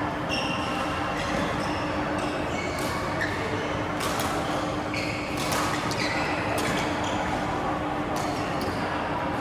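Badminton rally: court shoes squeaking on the floor, with several sharp racket hits on the shuttlecock, over a steady low hum.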